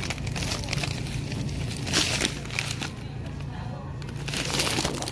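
Plastic bag of a frozen soft-shell turtle crinkling as it is picked up and turned over, loudest at about two seconds and again near the end, over a steady low hum.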